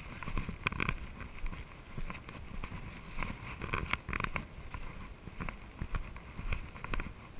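Mountain bike rolling over a bumpy leaf-covered dirt singletrack: a steady low rumble of tyres and wind, with irregular rattles and knocks from the bike over bumps.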